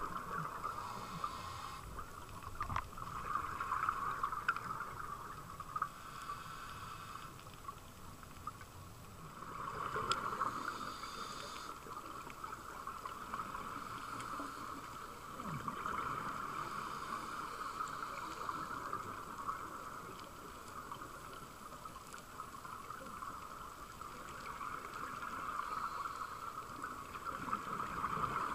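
Scuba diver's breathing heard underwater: regulator exhaust bubbles rushing and fading in waves about every six seconds.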